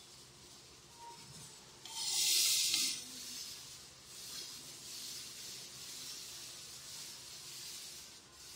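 Gas stove burner being turned on: a loud burst of hissing gas about two seconds in, lasting about a second, then a softer steady hiss of the burner.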